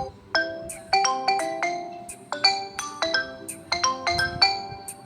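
Redmi 12C phone ringtone playing: a quick melody of short, bright, bell-like notes that fade fast, some struck together as chords.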